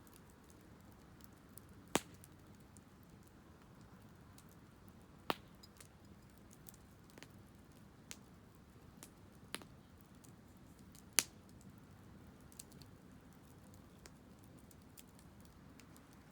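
Wood fire crackling: scattered sharp pops, a few louder ones about two, five and eleven seconds in, over a faint low hiss.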